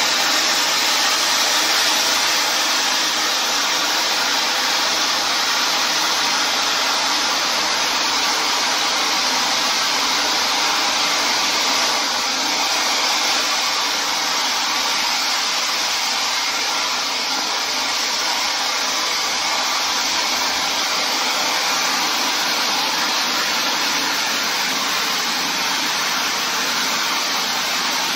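A 4 m, 60-second gold-to-silver pyrotechnic stage fountain burning with a steady hiss as it throws its column of sparks.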